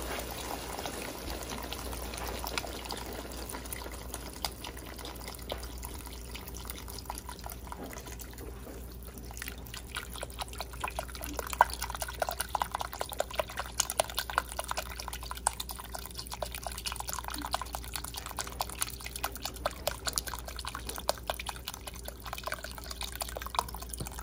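Beef broth poured from a container over a beef roast in the pan: a steady pouring stream for the first several seconds, then a long run of drips and small splashes.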